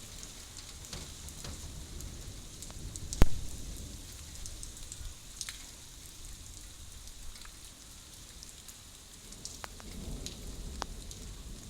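Steady rain with individual drops ticking close by. One much louder sharp tap about three seconds in, and a soft low rumble swells near the end.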